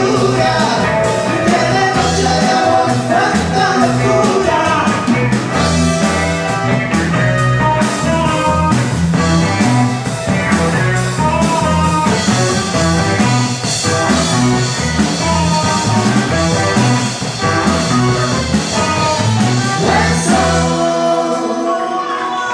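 Live band with a female lead singer: vocal over electric guitars, bass, drum kit and keyboard. The bass and drums stop near the end as the song finishes.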